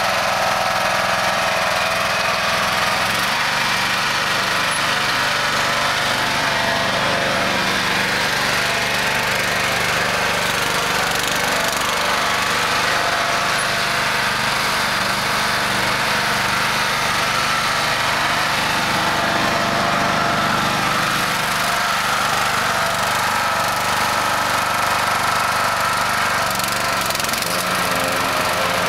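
Husqvarna riding lawn mower's engine running steadily as the mower is driven around.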